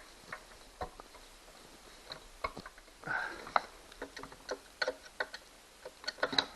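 Irregular clicks and taps of a hand tool working a screw out of an outboard motor's cover, with a brief scrape about three seconds in.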